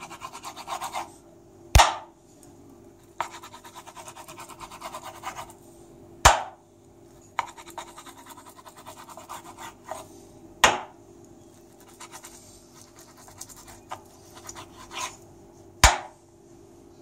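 Kitchen knife slicing raw chicken breast on a wooden cutting board: stretches of rapid rasping strokes as the blade saws back and forth, broken by four loud sharp knocks spaced about four to five seconds apart.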